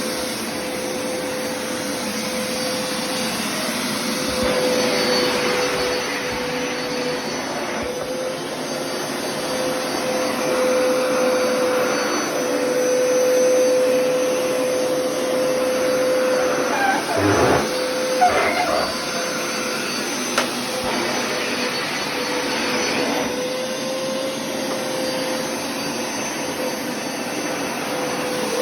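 A vacuum cleaner's motor runs steadily with a constant whine while it is worked over a carpet runner. A short cluster of knocks and rattles comes about two-thirds of the way through.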